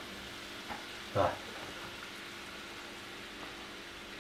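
Melted butter faintly sizzling in a small saucepan as flour is tipped into it for a roux, an even low hiss. A brief vocal sound about a second in.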